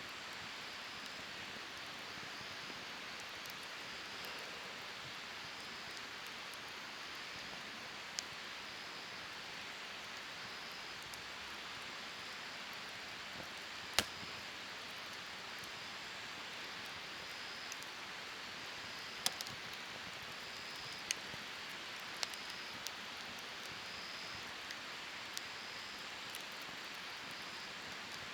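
Campfire of firewood burning: a steady hiss with scattered sharp pops and crackles, the loudest about halfway through and several more in the last third.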